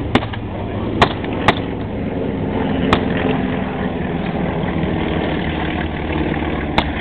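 Scattered blank rifle shots from reenactors: five sharp cracks at uneven intervals, over a steady engine-like rumble.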